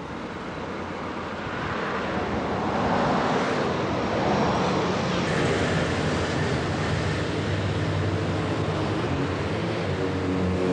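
Engine noise swelling over the first few seconds, like a vehicle passing, then a steady engine drone that grows stronger near the end.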